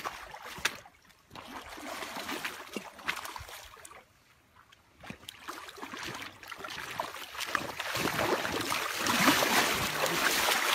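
King salmon splashing and thrashing at the surface in the shallows, in irregular bursts with a short quiet gap, then louder and more continuous splashing over the last few seconds.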